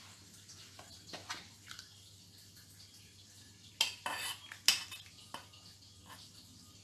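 A metal spoon clinking against a small steel pan as melted butter is scraped out over a plastic bowl of bread crumbs: a cluster of sharp clinks about four to five seconds in. Before them there is only faint rustling and a couple of small ticks from hands mixing the crumbs.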